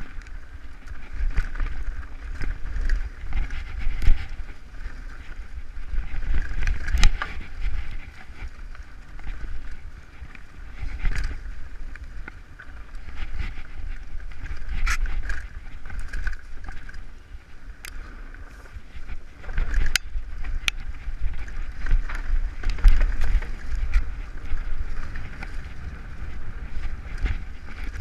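Mountain bike descending a rough dirt trail: wind buffeting the rider's camera microphone over the rumble of tyres on dirt and leaves, with sharp clicks and clatter of the bike jolting over bumps several times.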